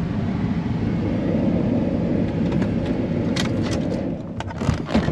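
Car driving, heard from inside the cabin: a steady engine and road rumble that eases off near the end, with a few short clicks and rattles in the last second or so.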